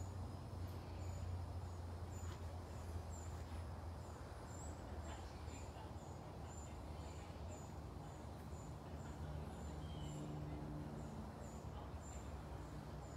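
Outdoor ambience: a short, high, thin chirp repeating about twice a second over a steady low hum.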